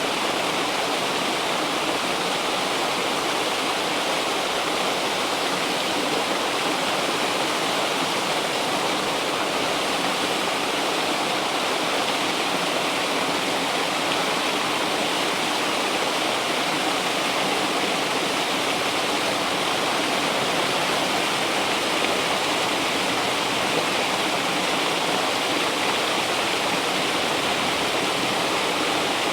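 River water rushing steadily over rocks, an even unbroken rushing.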